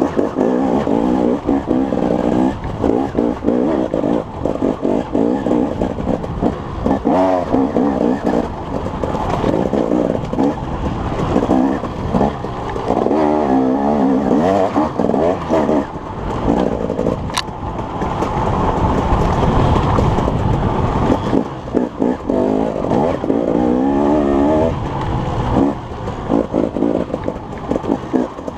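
An engine running steadily, its pitch wavering up and down now and then.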